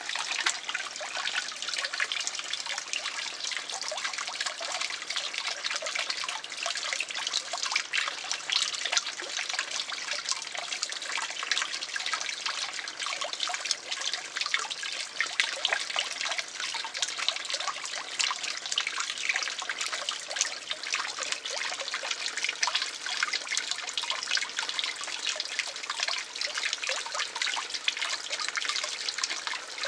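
Water splashing and trickling steadily into a garden fish pond, a continuous fine patter with no break.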